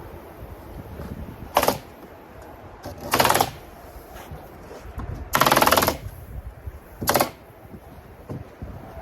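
Rapid-fire stapler shooting staples in four bursts, two short and two longer strings of rapid clacks, the longest just after the middle.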